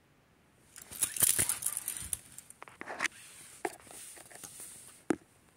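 Close handling noise: a burst of rustling and scraping about a second in, then a few separate sharp clicks.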